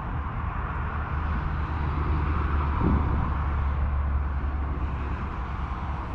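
A steady low hum over a steady hiss, swelling through the middle of the stretch.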